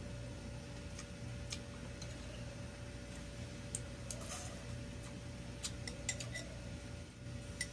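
Metal spoon and fork clinking and scraping against a ceramic bowl and plate as food is scooped up and eaten: scattered light clinks, several in quick succession about six seconds in, over a steady faint hum.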